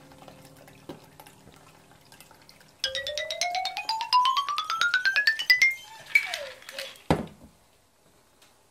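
Shaken cocktail poured from a stainless steel shaker into a martini glass: a pulsing tone that rises steadily in pitch for about three seconds. About seven seconds in comes a single sharp knock as the shaker is set down on the counter.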